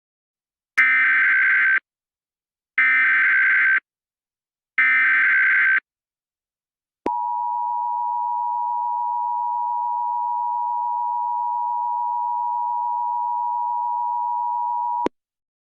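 Emergency Alert System broadcast tones. First come three one-second bursts of the SAME header's digital data warble, each about two seconds apart. Then the EAS two-tone attention signal (853 and 960 Hz) holds steady for about eight seconds and cuts off abruptly. The sequence marks the opening of a new alert message.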